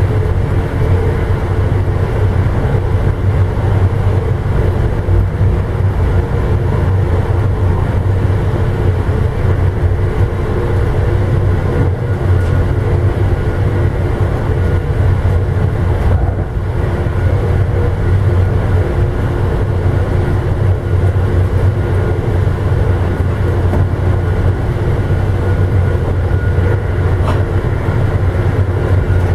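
Amtrak passenger train running steadily, heard from inside the rear car: a continuous low rumble with a steady drone, easing off briefly about halfway through.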